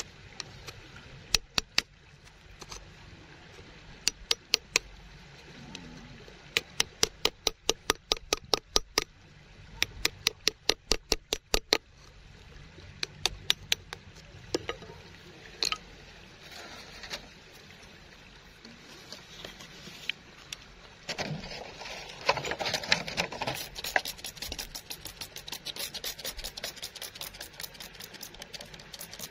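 A hand tool scrapes and picks at gravelly soil, with runs of sharp, evenly spaced clicks, a few a second, as it knocks against grit and stone. About two-thirds through comes a louder stretch of gritty scraping, and softer rubbing follows.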